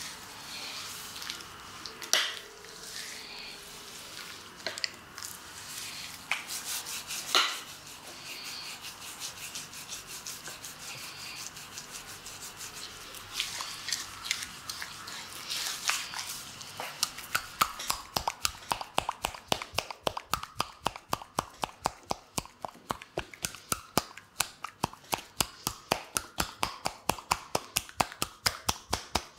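Hands rubbing and squishing foam over a bare chest during a massage, with a few sharper slaps. About two-thirds of the way through this turns into quick, even tapping on the foamy skin, about three to four strikes a second.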